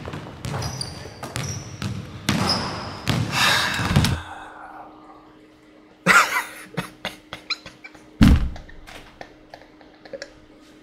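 Basketball bouncing on a gym floor with echo, among short high squeaks, for about four seconds; then the game sound cuts off, leaving a faint steady hum with scattered clicks and two louder knocks.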